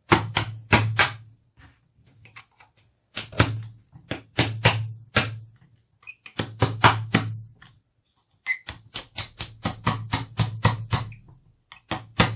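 Quick series of sharp metal taps in several bursts, a small hammer driving the cross pins back into a Henry Homesteader 9mm carbine's receiver.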